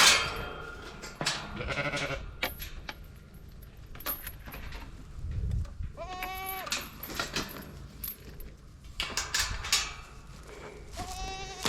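Farm livestock bleating: two drawn-out bleats, one about six seconds in and another near the end, with scattered rustles and knocks between them.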